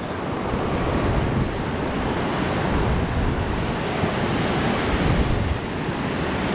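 Ocean surf breaking and washing on a beach, a steady rush with wind buffeting the microphone in uneven low rumbles.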